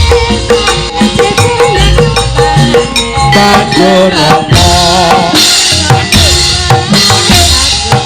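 Javanese gamelan playing loudly, with kendang hand-drum strokes driving the rhythm over held, ringing pitched tones.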